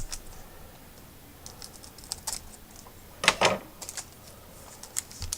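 A trading card pack being opened and its cards handled: scattered light clicks and rustles, with a louder double rustle about three seconds in.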